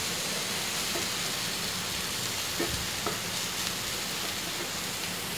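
Onion-tomato masala sizzling steadily in a nonstick pan as a wooden spatula stirs it, with a few faint scrapes of the spatula.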